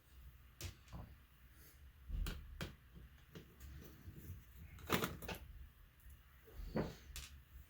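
Irregular clicks and light knocks of a laptop's plastic and metal parts being handled and worked apart by hand, the sharpest about two seconds in and about five seconds in.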